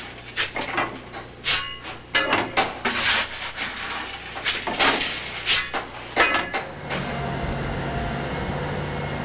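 Irregular metal clanks and knocks, some briefly ringing, from the firebox of Soo Line 2719's ALCO H-23 Pacific steam locomotive as the fire is tended at its first test firing. About seven seconds in they give way to a steady rush with a low hum as the fired-up locomotive smokes from its stack.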